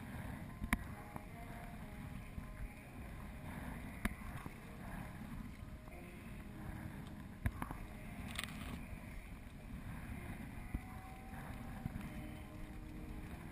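Sea kayak being paddled through choppy water: paddle blades dipping and pulling, water sloshing against the hull, over a steady low rumble, with a few sharp clicks scattered through.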